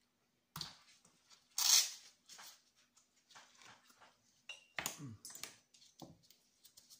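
Handling a Leatherman multitool: rustling and scraping as it is fetched, with one louder scrape about two seconds in, then small clicks and knocks as it is worked open in the hands, over a faint steady hum.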